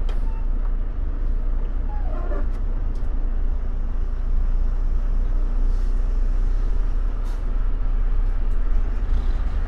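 Diesel engine of a Volvo semi truck running with a steady low rumble, heard from inside the cab as the truck creeps forward at low speed.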